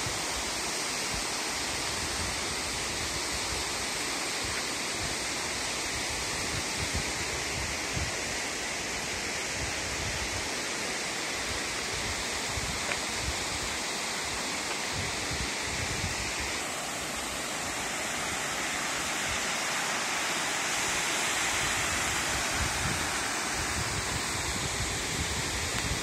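Steady rushing of a waterfall and the shallow rocky stream below it, an even hiss of falling and running water, with irregular low buffeting on the microphone.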